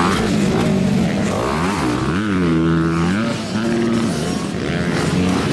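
Motocross dirt bike engines revving, their pitch rising and falling with throttle and gear changes as several bikes ride the track. A little past two seconds in, one engine's pitch rises, then drops and holds steady for about a second.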